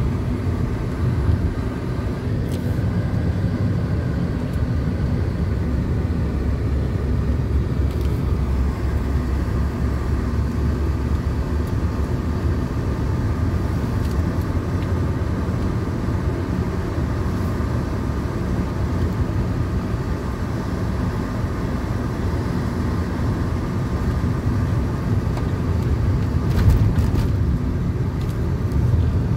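Steady engine and tyre road noise heard inside a moving car's cabin, a low even rumble, with a brief louder bump near the end.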